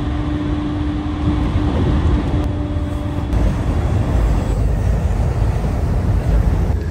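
City street traffic: a steady, loud low rumble of passing vehicles, with a faint steady hum in the first couple of seconds that fades away.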